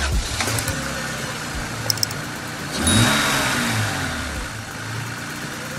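Car engine running and being revved, its pitch rising and falling, with a louder rev about three seconds in.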